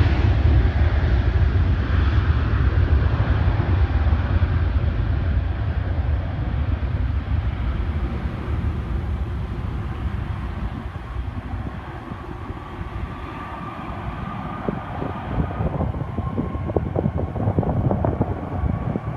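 Jet aircraft engine rumble fading away, with wind buffeting the microphone in gusts near the end.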